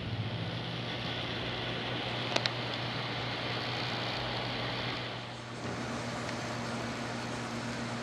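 Steady hum of a vehicle engine running, heard from inside a pickup truck's cab, with a hiss over it that falls away about five seconds in. A couple of faint clicks come a little after two seconds.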